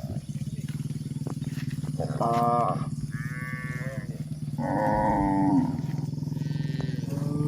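Cattle mooing, four calls one after another from about two seconds in, some short and one drawn out for about a second, over a steady low drone.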